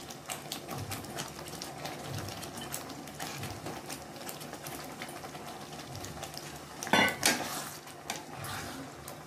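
Thick curry gravy bubbling at a boil in a wok, with small pops and clicks throughout. About seven seconds in, a metal spatula scrapes and stirs through the pan; this is the loudest sound.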